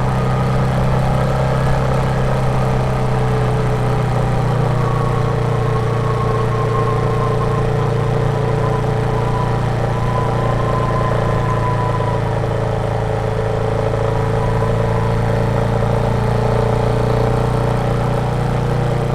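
Royal Enfield Meteor 350's single-cylinder 349 cc engine running steadily on the move, its pitch drifting only slightly as the speed holds.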